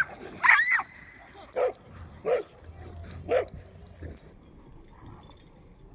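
Dogs vocalising: a high-pitched yelp about half a second in, then three short barks roughly two-thirds of a second apart, after which it goes quiet.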